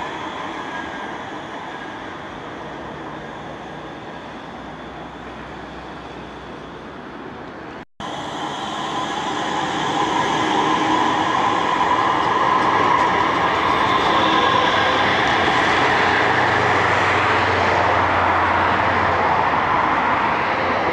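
Manchester Metrolink M5000 light-rail tram running on its track: at first its sound slowly fades, then after a break about 8 seconds in a tram runs past at close range, louder and steady, with a held tone and a low hum over the rail noise.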